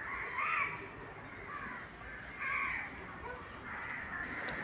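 Crows cawing, about four separate calls roughly a second apart, the loudest about half a second in.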